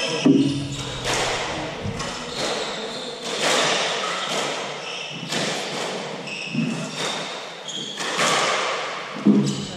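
Hardball doubles squash rally: the hard ball is struck by rackets and hits the walls in a run of sharp knocks, about one a second, echoing in the court. Short high squeaks come between the knocks. The loudest knocks come just after the start and again near the end.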